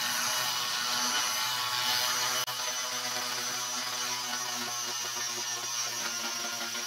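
Oscillating multi-tool running with a sanding pad pressed on the steel of an axe head cut from an old circular saw blade: a steady buzz with a sanding hiss.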